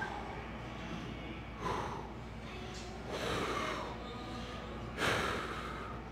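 A man's forceful, sharp breaths: about four hard exhales, each starting abruptly, roughly every one and a half seconds, the last the loudest. They are the breathing of a bodybuilder straining to hold back poses with a heavy back pump.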